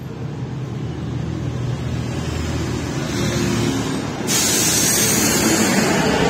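City bus passing close by, its engine rumble building, then a sudden loud hiss starting about four seconds in and lasting about two seconds.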